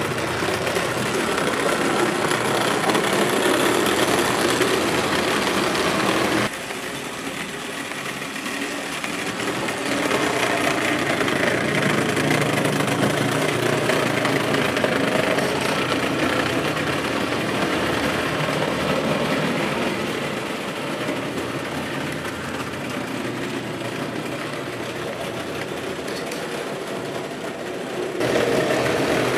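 Vintage Lionel 250 tinplate electric locomotive and its freight cars running steadily around O-gauge three-rail track, the motor and wheels humming and rumbling on the metal rails. The sound drops suddenly about six seconds in and comes back louder shortly before the end.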